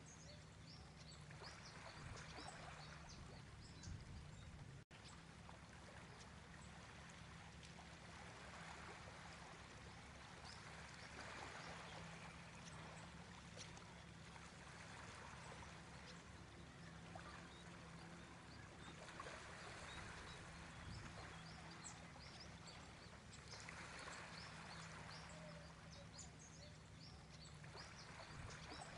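Near silence: faint room tone with a steady low hum and soft swells of hiss every few seconds.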